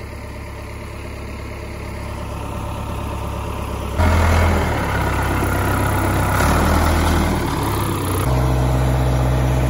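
Ford 555C backhoe loader's diesel engine running steadily, growing louder over the first few seconds, then loud and close. Its note shifts to a new steady pitch near the end.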